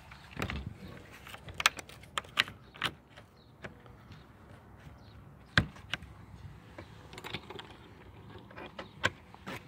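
Handling of a wooden skirting door's latches: a small brass barrel bolt slid by thumb and a metal hook-and-eye catch fastened at the bottom, giving a handful of sharp metal clicks and wooden knocks, the loudest a little past halfway.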